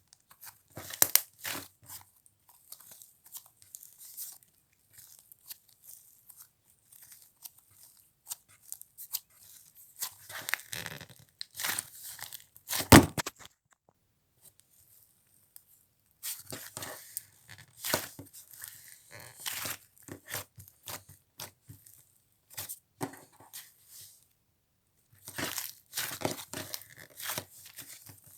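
Butter slime, made by mixing clay into slime, being squished and stretched by hand, giving sticky crackling and tearing sounds in irregular bursts with short pauses. About thirteen seconds in there is one sharp, loud click.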